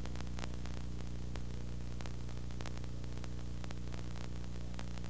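Steady electrical hum and hiss with scattered faint clicks and crackle, with no music or voice: the background noise of an old analogue videotape transfer.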